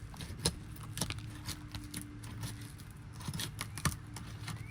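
3-tab asphalt shingles being pried apart with a roof snake: the sealant bond between the tabs tears loose in irregular crackles and sharp snaps.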